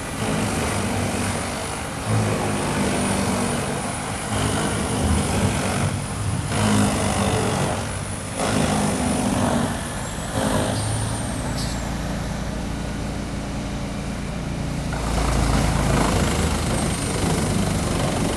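Large wood chipper running under load, its engine humming low while wood is chipped, in uneven surges with several abrupt breaks; a deeper rumble builds near the end.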